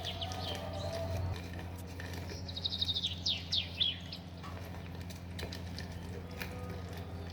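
A bird chirping: quick runs of high, descending notes, the clearest group about halfway through, over a steady low hum.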